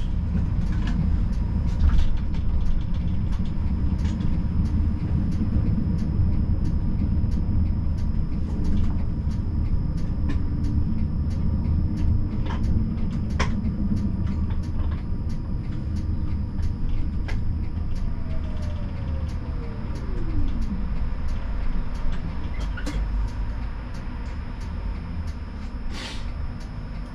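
Siemens Combino tram running on street track, heard from inside the driver's cab: a steady low rumble from the wheels and drive, with a faint regular ticking about twice a second. About two-thirds of the way through, a whine glides down in pitch, and the rumble eases a little towards the end.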